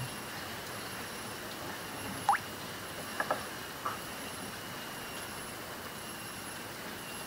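Steady outdoor riverside ambience with faint high insect-like drones. About two seconds in comes one quick rising chirp, then a few shorter chirps about a second later.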